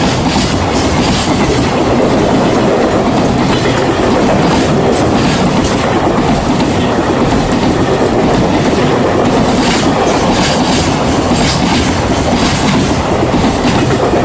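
A train running past, loud and steady, with the rumble of the cars and the clickety-clack of wheels over rail joints.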